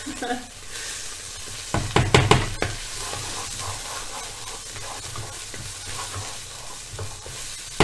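Spice paste sizzling steadily in hot oil in a pan as a spatula stirs it, with a quick run of spatula scrapes and knocks against the pan about two seconds in. The sizzle is the sign the paste is frying just right: 'sounding perfect'.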